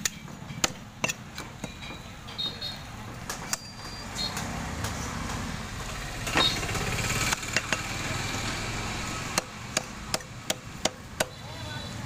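Cleaver chopping through rooster carcass on a wooden stump block: sharp, irregular chops, with a quick run of several near the end, over a steady low hum.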